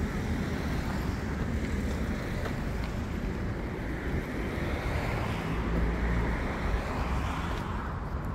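Outdoor road noise, with wind rumbling on the microphone and the sound of passing traffic. It swells louder about five to seven seconds in.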